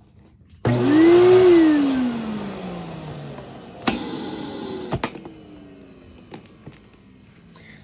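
Kenmore Whisper Tone canister vacuum's motor switched on just over half a second in, rising briefly in pitch, then winding down with a steadily falling hum after being switched off. Two sharp clicks come about four and five seconds in.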